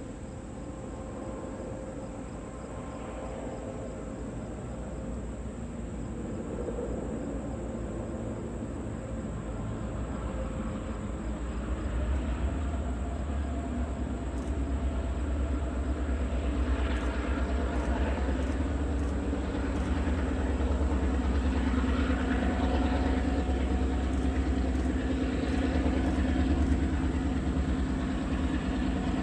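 Diesel-hauled passenger train drawing near, the locomotive's engine drone growing steadily louder over the first half and then running loud and steady.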